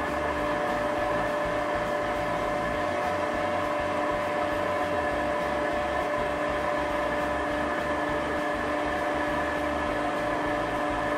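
Air blower on a coal forge running steadily, an even whirring hum over a rush of air through the burning coals.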